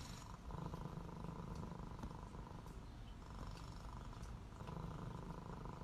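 A domestic cat purring: a faint, steady low rumble that swells and eases a few times with its breaths.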